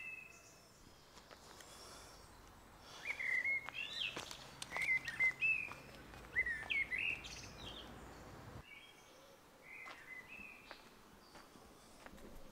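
Birds calling in short chirped phrases, busiest about three to seven seconds in, over faint outdoor background noise.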